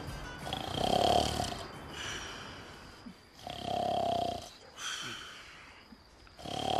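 A man snoring loudly: three long snores about three seconds apart.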